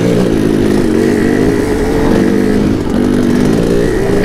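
Two-stroke dirt bike engine running at low trail speed, its pitch wavering up and down as the throttle is worked.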